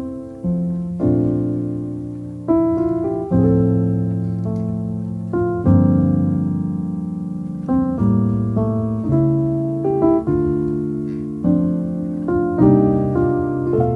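Background music: slow, gentle solo piano, with notes and chords struck every second or two and left to ring out and fade.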